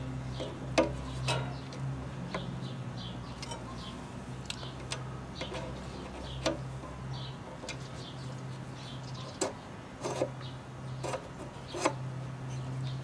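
Scattered small clicks and taps as the RV water heater's burner tube and air adjuster are handled and worked, about eight sharp knocks spread through, with birds chirping in the background over a low steady hum that drops out now and then.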